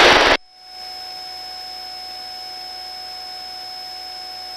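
Helicopter crew intercom audio: a voice cuts off suddenly at the very start, then a steady hiss with a few faint, constant whine tones and no one talking.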